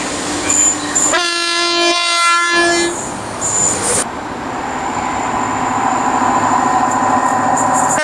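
Approaching train's horn sounding one blast of a little under two seconds, its pitch shifting near the end. After a sudden cut, a steady rushing rumble of a train on the rails builds up.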